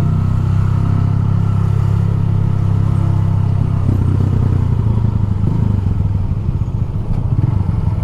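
Motorcycle engine running at a steady pitch, heard from on the bike. About four seconds in, the steady note gives way to a more uneven sound.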